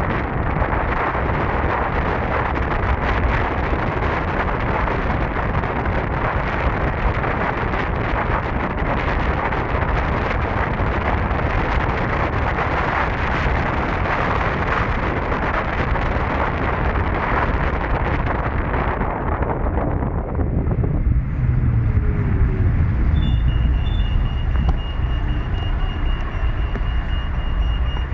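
Wind buffeting the microphone while riding an electric scooter at speed, a dense rushing noise with a low rumble beneath. About 20 seconds in, the rushing hiss drops away, leaving mostly the low rumble, and a thin, steady high tone comes in near the end.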